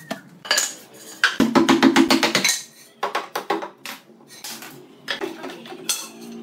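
Hammer knocking on wooden boards and props: a run of sharp, irregular knocks, loudest and thickest around the middle.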